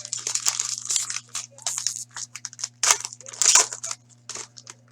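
Hockey card pack wrapper crinkling and tearing in a run of irregular crackling bursts as the pack is ripped open and handled, loudest about three seconds in.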